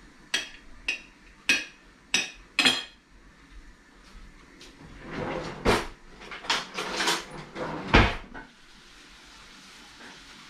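Cutlery clinking against china dinner plates as fish is served, five sharp clinks in the first three seconds. Then a run of kitchen clatter and knocks, the loudest a hard knock about eight seconds in.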